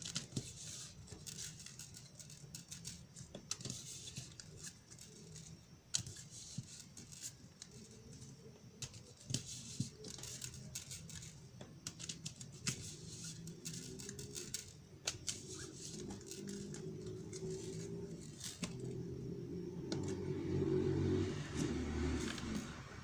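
A deck of tarot cards being shuffled by hand, a soft patter of card edges with many small irregular clicks and the light jingle of a chain bracelet on the shuffling wrist. Near the end the cards are dealt out onto the wooden table.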